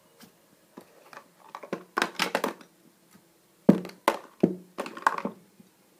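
Knocks and clicks of hard plastic storage boxes and makeup being handled and set down: a cluster about two seconds in, then several sharper knocks in the second half.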